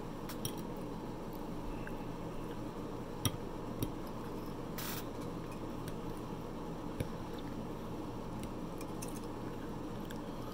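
A fork clicking against a plate a few times, with soft chewing sounds, over a steady low hum.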